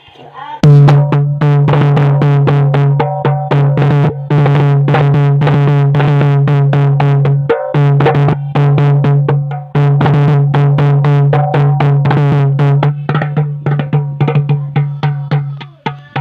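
Darbuka (goblet drum) played in a quick, steady rhythm over a continuous low buzzing tone that gives it a strange, fart-like sound. The playing breaks off briefly about seven and a half seconds in, and near the end the strokes grow sparser and quieter.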